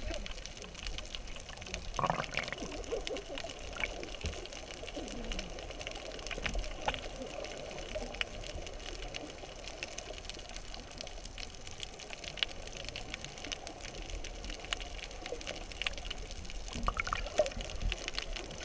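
Underwater ambience heard by a submerged camera: a steady, muffled wash of moving water with scattered small clicks and bubble sounds, and a brief louder knock about two seconds in.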